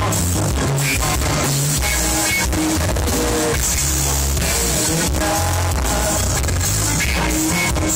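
Loud amplified band music with a heavy bass line, instruments and some singing, played through a venue's sound system during a sound check.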